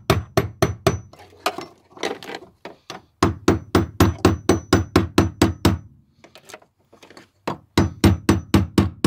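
Hammer striking the end of a screwdriver held against a lug of the fuel pump's locking ring, to knock the ring round and loosen it. The blows come in quick runs of about five a second, with a pause of a second or two between runs.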